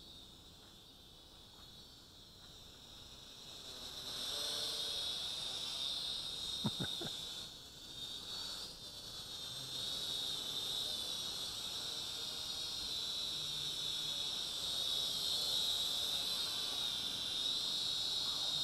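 Fineco FX-6C mini quadcopter's small motors and propellers whining high-pitched in flight, wavering a little in pitch and getting louder about four seconds in as it flies nearer. A couple of brief clicks come about seven seconds in.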